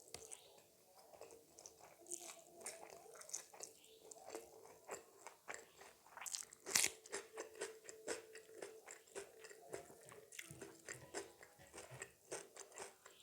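Close-miked mouth sounds of eating: repeated biting and crunching with wet chewing, in an irregular run of crisp clicks. One loud crunch comes about halfway through.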